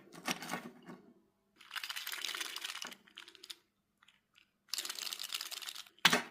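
3D-printed articulated plastic fidget figures clicking and rattling as their jointed segments are flexed, in three bursts of rapid clicks, with one sharp loud click near the end.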